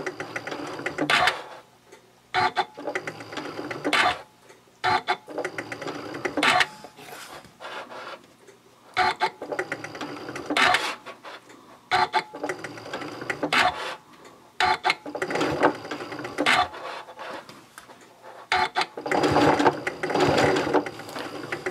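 Janome Continental M7 Professional sewing machine stitching in short runs of a few stitches, with clicks and brief pauses between them as the fabric is pivoted around a curve. A longer, unbroken run of stitching comes near the end.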